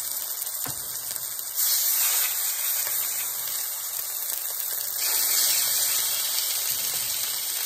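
Pork chops sizzling in hot olive oil in a cast iron skillet, a steady high hiss that jumps louder about a second and a half in and again about five seconds in as more chops are laid into the pan. A single light click of the tongs comes early in the sizzle.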